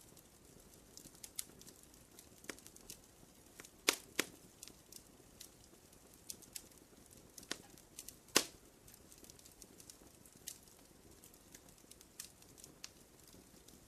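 Wood fire crackling: irregular sharp pops and snaps over a faint low hiss, the loudest pops about four seconds in and a little past eight seconds.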